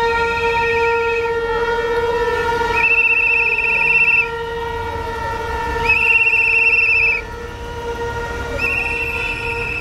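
A whistle blown in four long trilling blasts, each about a second, over a steady held horn note that drones on without a break.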